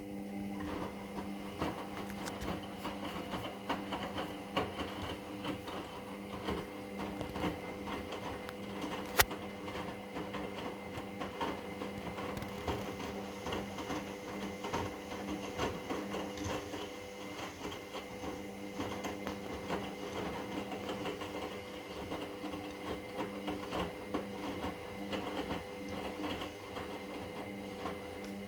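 Indesit MyTime EWD71452 washing machine running mid-cycle on a cotton 45' wash: a steady motor hum with small rattles and clicks, starting suddenly and cutting off abruptly after about 28 seconds, with one sharp click about nine seconds in.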